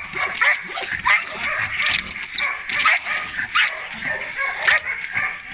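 Belgian Malinois barking in a rapid series of sharp barks, about two a second: agitation barking during protection training, worked up by a decoy holding a bite tug.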